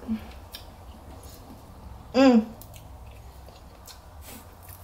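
Faint clicks and mouth sounds of someone picking and eating Dungeness crab meat from the shell, with a short hummed vocal sound a little over two seconds in, the loudest sound.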